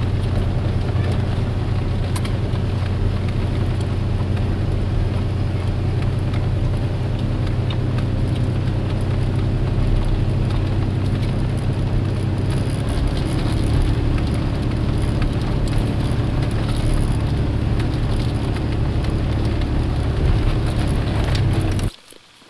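Engine and tyre noise of a vehicle heard from inside the cabin, driving up a rough dirt road: a steady low drone with faint rattles and clicks. The drone shifts about halfway through, and the sound stops abruptly near the end.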